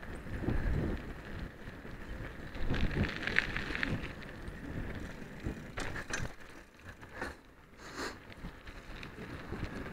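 Irregular rumbling, rattling and clicking from a camera travelling along a cracked asphalt road, with knocks scattered throughout.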